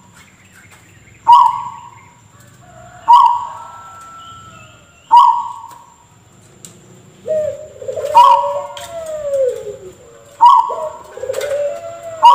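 Zebra dove (perkutut) giving short, sharp, cough-like calls, about one every two seconds. In the second half, gliding, wavering coo notes run between the calls.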